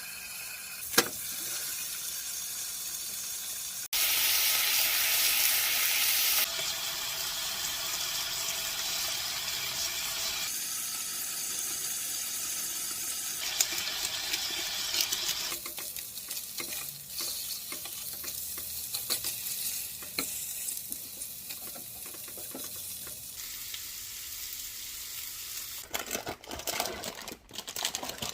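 Food sizzling in a frying pan, with stirring, over a few cut-together clips that change in loudness. Short clicks and clatter near the end.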